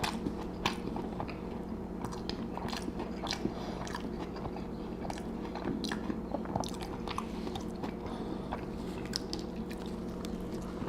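Close-miked chewing and biting of a Burger King Whopper-and-fries meal: irregular small crunches and wet mouth clicks over a steady low hum.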